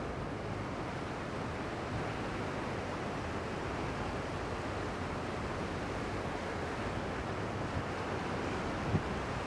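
Steady rush of small surf waves breaking along the shore, with wind on the microphone. A brief low thump comes near the end.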